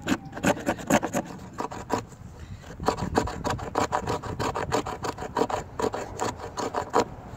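A blade scraping fine tinder shavings off a resin-rich pine fatwood stick, in quick repeated strokes about three a second with a couple of brief pauses.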